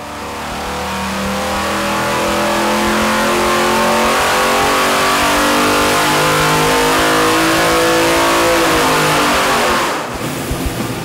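Naturally aspirated 502-cubic-inch RHS LS V8 making a full-throttle dyno pull, its pitch and loudness rising steadily for about nine seconds, then falling away as the pull ends about ten seconds in.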